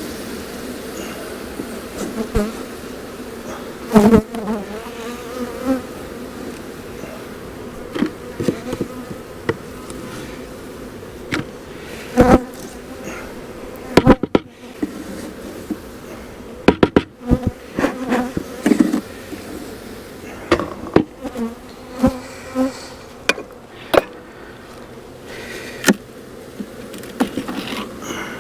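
Honey bees buzzing steadily in a steady hum around an open hive, broken by frequent sharp knocks and clicks of wooden hive boxes and frames being handled as the hive is reassembled.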